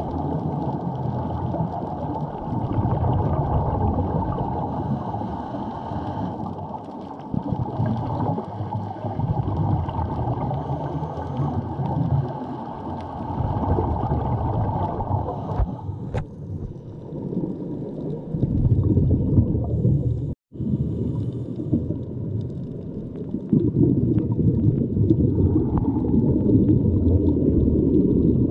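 Muffled underwater noise picked up by a GoPro camera submerged while snorkeling: a dull, rushing wash of moving seawater, strongest in the low end with almost nothing high. It cuts out for a split second about twenty seconds in.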